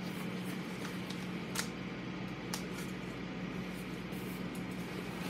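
Steady low electrical or fan hum of room tone under a faint hiss, with a few faint light clicks.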